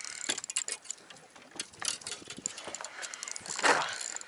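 Fishing reel clicking rapidly as line is worked against a hooked sea bass, with a short rush of noise about three and a half seconds in.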